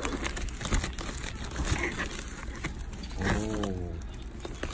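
Plastic bubble mailer crinkling and scratching as it is handled and pulled open, with scattered sharp clicks. About three seconds in, a short hummed voice sound falling in pitch.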